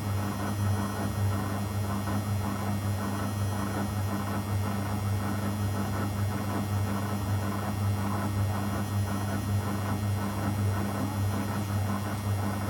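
Zanussi FL984CN front-loading washing machine running mid-cycle: a steady low hum with a rushing noise over it, unchanging throughout.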